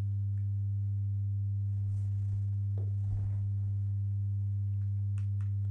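Steady low electrical hum with a stack of evenly spaced overtones, unchanging throughout; two faint clicks near the end.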